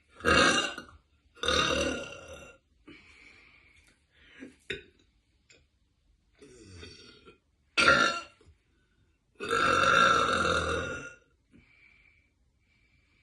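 A woman burping loudly: two big burps in quick succession at the start, a short one about eight seconds in, and a long drawn-out one near the end. Quieter short sounds come in between.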